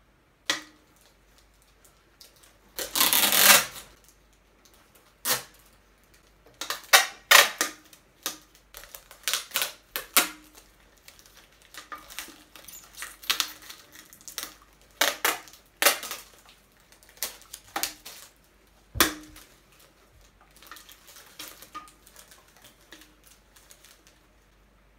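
Aluminium drink cans being handled and knocked together: an irregular string of clinks, taps and knocks with rustling, including a longer rustling burst about three seconds in and a heavier thump about two-thirds of the way through.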